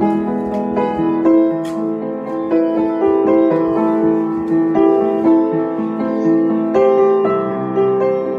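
Upright piano being played: a slow melody over sustained chords in the middle register, with a new note struck every half second or so.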